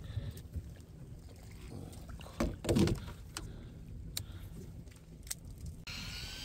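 Small fishing boat on the water: a steady low rumble of wind and water with scattered knocks and clicks of handling aboard, and one louder brief thump about two and a half seconds in.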